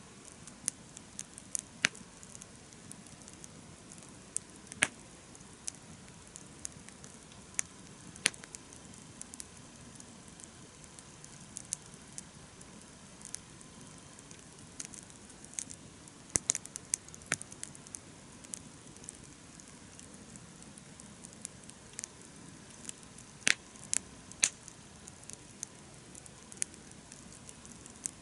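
Wood campfire crackling: sharp, irregular pops and snaps over a steady low noise of the burning fire.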